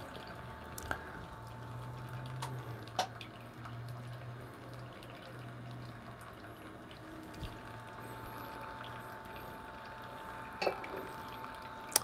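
Xbloom coffee machine pouring a thin stream of hot water onto a coffee bed in a pour-over dripper, a faint steady trickle and drip under a low, steady machine hum, with a few small ticks.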